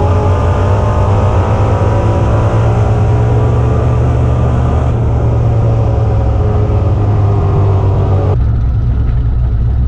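Turbocharged 427 cubic-inch LS-based V8 of a 1961 Buick Skylark drag car, heard loud from inside the cabin, running steadily with a deep rumble. About eight seconds in the sound changes abruptly to a duller, lower engine rumble.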